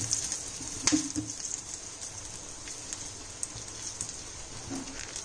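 Hot oil with dried red chillies, curry leaves and ground spices sizzling faintly in a pan, with scattered small crackles. A single light knock comes about a second in.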